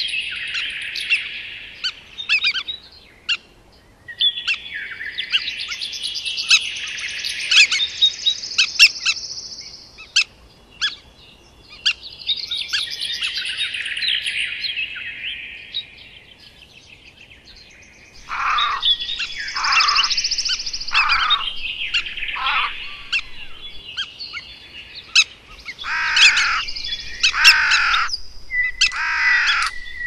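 Wild birds singing in woodland: several bursts of fast, chattering song, then, about halfway through, groups of loud calls that each sweep steeply downward in pitch. Scattered sharp ticks come between them.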